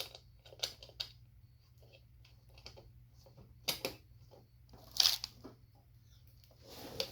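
Scattered light clicks and metallic clinks of tools and parts being handled during mini bike assembly, with a sharper clink about five seconds in, over a faint low steady hum.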